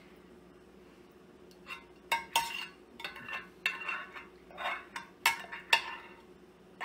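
Metal spoon clinking and scraping against a glass baking dish as tomato sauce is spread over its bottom, starting about two seconds in with several sharp clinks among short scraping strokes.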